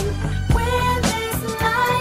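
Background music: a song with a steady drum beat of about two beats a second over bass and a melodic line.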